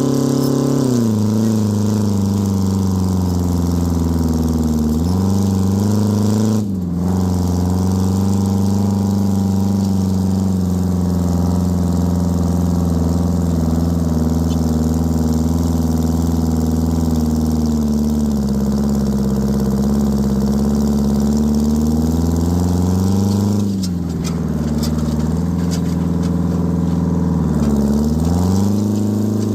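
Detroit Diesel 4-53 two-stroke four-cylinder diesel in an Oliver tractor running hard under load while pulling a disc. Its pitch sags and recovers several times as the load changes, with a brief dip near the quarter mark.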